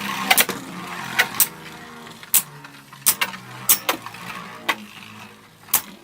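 Two Beyblade Burst spinning tops, Minoboros and Genesis Valtryek, whirring in a plastic stadium. Sharp plastic clacks come every half second to a second as they collide. The battle ends in a double burst, with both tops knocked apart.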